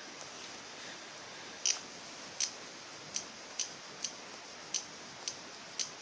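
Praying mantis chewing into a cicada's hard body: about eight crisp clicks at uneven half-second gaps, starting about a second and a half in.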